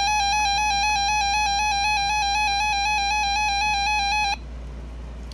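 RadioShack 262 weather alert radio sounding its alert test tone: a loud, shrill electronic alarm at one pitch with a fast, even warble, cutting off suddenly about four seconds in.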